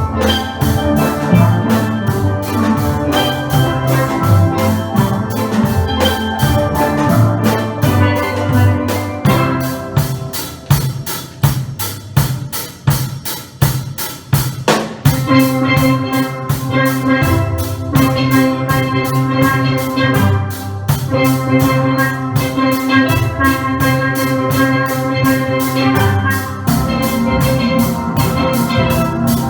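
Steel pan band playing a tune, the pans ringing in rhythmic chords over drums. About ten seconds in the band thins out and plays quieter, coming back in full about fifteen seconds in.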